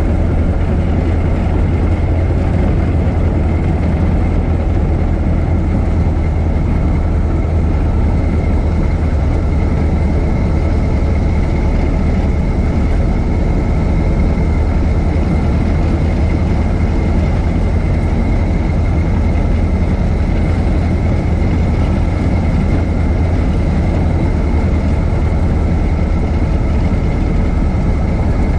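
1926 Ford Model T's four-cylinder engine running steadily at an even pace, with a strong low hum and a faint steady whine over it.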